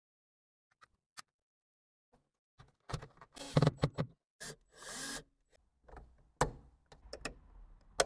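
Plastic interior trim being handled and pressed into place on a car's roof lining around the overhead console: an irregular run of short clicks and knocks with a brief rustle of handling, starting a few seconds in.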